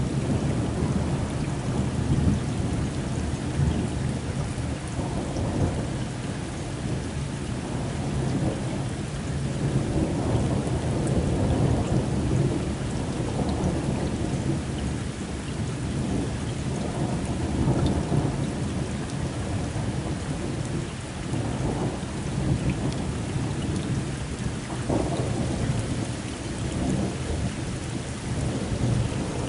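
Heavy rain falling steadily under continuous low, rolling thunder from a severe thunderstorm, swelling and easing without any sharp crack.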